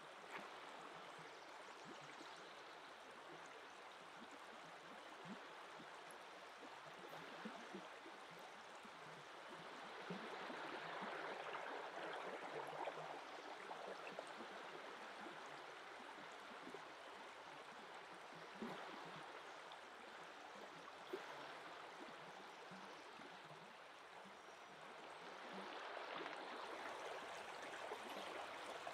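Steady rush of a river flowing, faint, swelling a little twice, with a few light clicks from handling jars and utensils.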